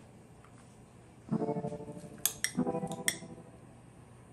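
Two strummed plucked-string chords of background music, about a second and a half apart, each ringing out and fading. A few sharp clinks of a utensil on a glass bowl and plate come between them, as rice is spooned onto a plate.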